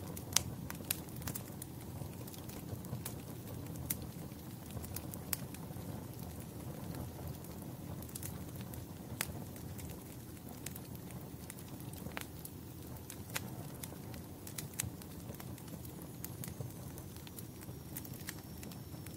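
Wood fire crackling in a fireplace: irregular sharp snaps and pops over a steady low rumble of the burning logs.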